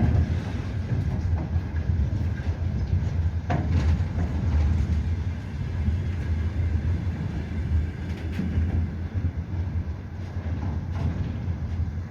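Slow container freight train rolling past, with a steady low rumble of the wagons and a few clicks from the wheels going over rail joints.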